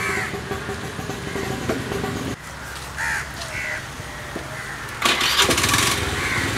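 Crows cawing several times over a steady engine hum, with a louder harsh burst of noise about five seconds in that lasts about a second.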